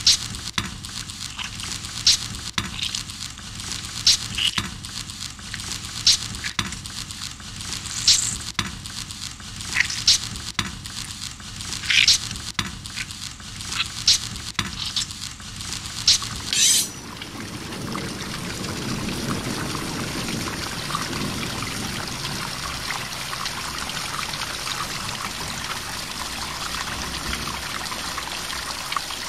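Sound played back from a video soundtrack: a sharp crackling snap about every two seconds, with fainter clicks between. About seventeen seconds in, the snaps stop and give way to a steady hiss like running water.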